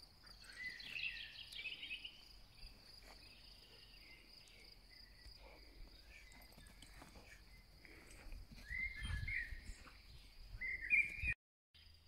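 Crickets chirring steadily in one high, even tone, with short bird calls over it: a burst of calls about a second in and two more in the last few seconds, the last the loudest.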